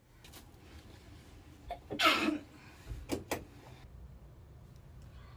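A woman sneezes once, loudly, about two seconds in, its voiced tail falling in pitch, after a quick intake of breath; about a second later come two shorter, fainter breathy sounds.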